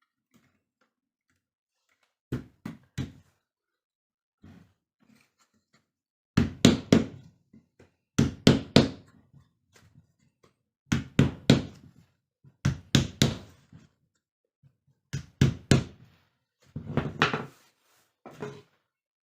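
Repeated knocking in a small room: short groups of two to four sharp knocks every second or two, starting about two seconds in.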